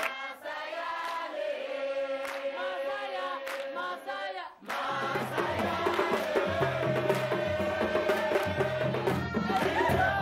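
Credits music: several voices chanting over a steady held drone, with a repeating low drum pattern coming in about halfway through.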